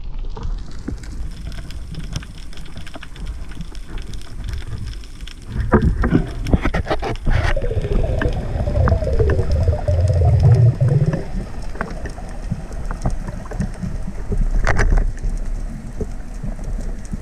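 Underwater sound picked up by a spearfisher's camera: a steady low water rush with scattered clicks and crackles. From about six to eleven seconds in it grows louder, with a wavering gurgling sound.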